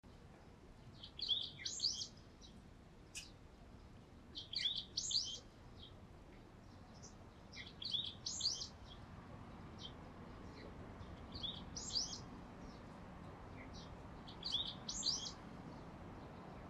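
A songbird singing the same short phrase of high chirps over and over, one phrase about every three seconds, against a faint steady background hum.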